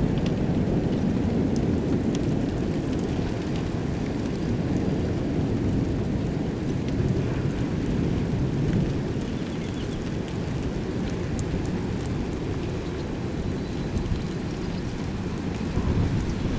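Steady rain: a continuous low rushing noise with faint scattered drop ticks.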